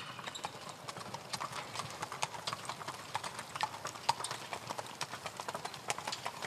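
Hooves of an Orlov trotter in harness clip-clopping: a steady run of sharp hoof strikes.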